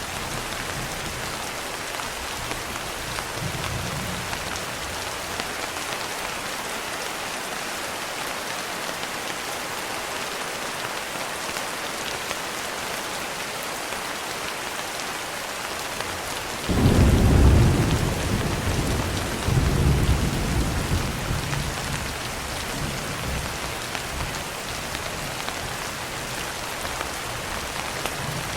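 Steady rain falling. A little past halfway a low rumble of thunder breaks in suddenly, swells again a few seconds later, then dies away under the rain.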